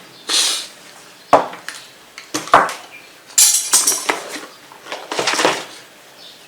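Handling noise from toolless hard-drive mounting brackets being fitted: clicks, clatters and scrapes, with sharp knocks about one and a half and two and a half seconds in.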